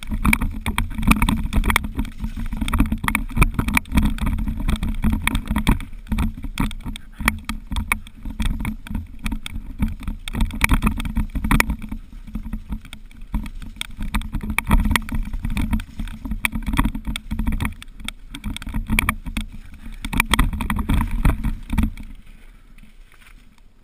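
Mountain bike rattling and knocking over a rough, slippery peat trail, heard through a helmet-mounted GoPro under a constant low rumble of wind on the camera. It quietens about two seconds before the end as the bike slows onto a gravel track.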